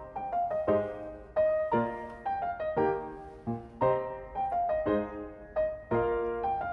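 Background music: solo piano playing a gentle melody, each note struck sharply and fading, a new note or chord about every half second.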